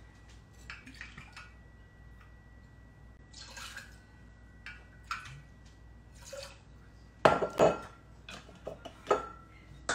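Bottles, glassware and a cocktail shaker clinking and knocking as drink ingredients are handled and poured. A few sharp knocks, the loudest, come about seven seconds in, and another just after nine seconds.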